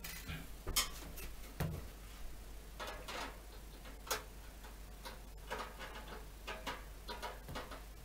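Irregular light clicks and taps of a floor fan's plastic safety grille being handled and fitted together, the front grille seated onto the rear one.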